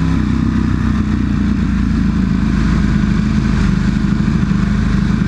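Sport motorcycle engine running at low, steady revs while the bike rolls slowly through traffic, its pitch creeping up slightly over the first couple of seconds, with a steady rush of wind noise.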